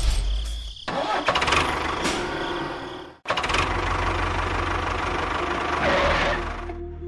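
Engine sound of a miniature model tractor running with a rapid, even pulse. It breaks off abruptly about three seconds in and starts again straight away.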